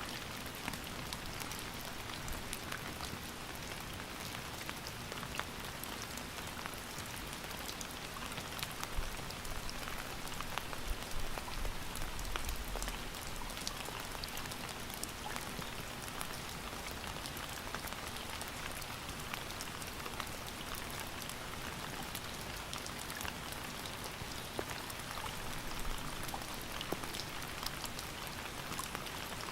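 Steady rain falling, a dense hiss with many individual drops ticking on a surface and occasional louder drops. A brief low rumble about twelve seconds in.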